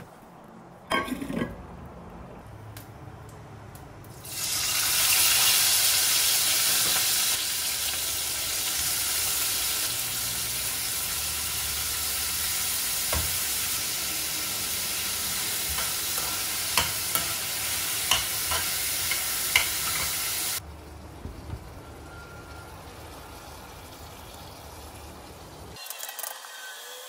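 Food sizzling loudly in a hot pan while being stir-fried, with a few sharp clicks. The sizzle starts abruptly about four seconds in and cuts off suddenly about twenty seconds in.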